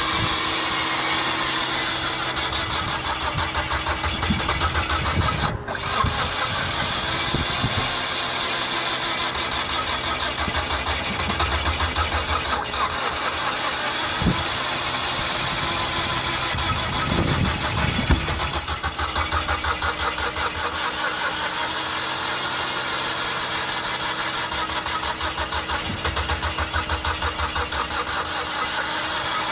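Mazda Familia Sport 20 engine being turned over by its starter, cranking steadily in a fast even rhythm with a couple of brief breaks, without catching: a crank-but-no-start, which the owner traced to the engine having lost its timing.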